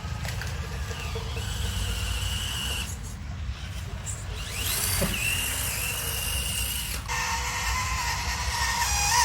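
Mini RC crawler's small electric motor and gearbox whining, the pitch shifting as it drives, over a low rumble. The whine changes abruptly about three and seven seconds in.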